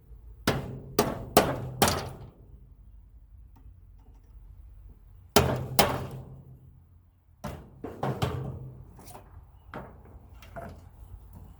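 Hammer blows on metal furnace parts: four strikes about half a second apart, two more about halfway through, and a few more, some lighter, later on.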